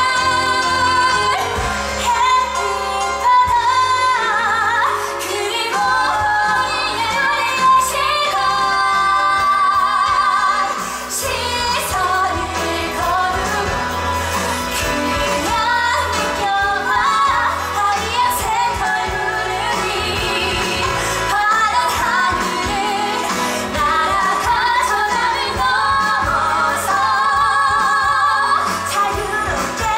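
A musical-theatre song sung live over instrumental accompaniment, the voice holding long notes with vibrato.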